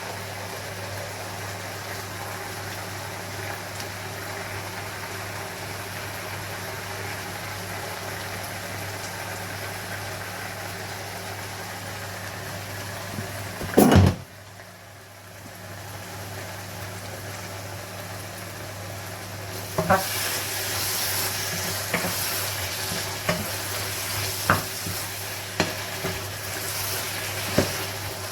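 Spinach stew sizzling in a pot on the stove, with a short loud clatter about halfway through. In the last third the sizzling grows louder, and a spoon clicks against the pot every second or so as the spinach is stirred in.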